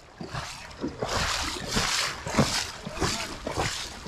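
Water splashing in short, irregular bursts: a hooked brown trout thrashing at the surface while it is played on light spinning tackle.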